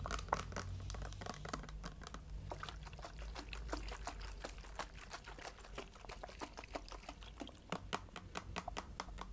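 Liquid being poured, heard as a dense, irregular patter of small splashes and bubbling clicks.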